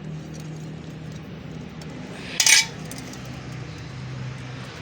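A short, sharp metallic clatter about halfway through, as a hand tool knocks against metal while the 10 mm bolts on a motorcycle's rear sprocket are being undone. A steady low hum runs underneath.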